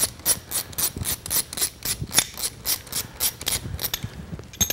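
Ratchet wrench clicking at a steady four or so clicks a second as it loosens a starter mounting bolt on an outboard motor. The clicking stops about four seconds in, and a single sharp click follows near the end.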